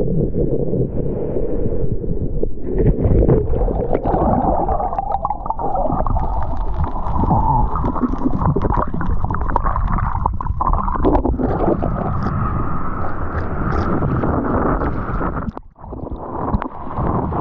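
Muffled rushing and gurgling of churning water heard through a surfer's GoPro as it goes underwater in the wave's turbulence. Near the end the level briefly drops, then splashing water and wind on the microphone as the camera comes back up.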